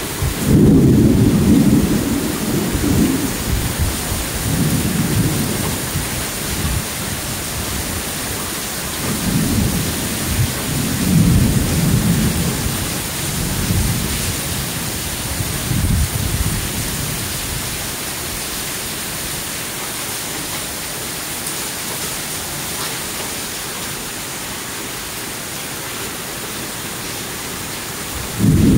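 Heavy thunderstorm rain pouring steadily, with several low rumbling surges: a loud one right at the start, a cluster about a third of the way in, and another at the very end.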